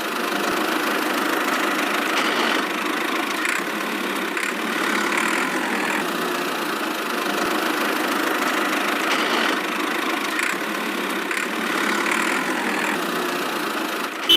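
A small motor running steadily, as on a miniature DIY model tractor, with no break or change in speed.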